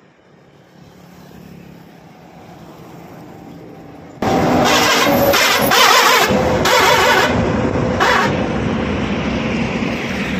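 A Tata goods truck passes close by on a highway: engine and tyre noise that grows slowly louder, then turns suddenly loud about four seconds in, with several noisy surges over the next few seconds before it eases off.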